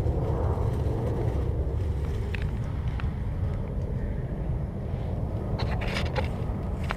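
Steady low wind rumble buffeting an action camera's microphone, with a few faint clicks about two to three seconds in and again near the end.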